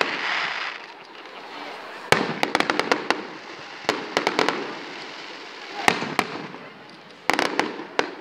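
Fireworks display: aerial shells bursting in volleys of sharp bangs, coming in four quick bunches about two seconds apart, with a crackling hiss at the start.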